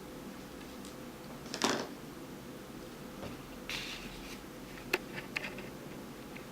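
Small handling sounds of a precision screwdriver and the iPhone 4's tiny back-cover screws being taken out: a scrape about one and a half seconds in, a rustle near four seconds, then a sharp click and a few light ticks, over a faint steady hum.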